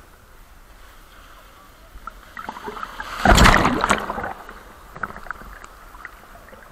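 A sea wave breaking on the shore: the surf noise builds about two seconds in, crashes loudest a little after three seconds with a crackling wash, then falls back to a steady surf hiss.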